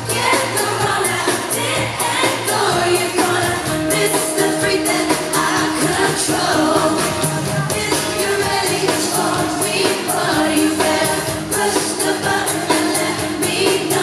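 Live pop music: women singing into microphones over a band with a steady beat, recorded from the audience in a concert hall.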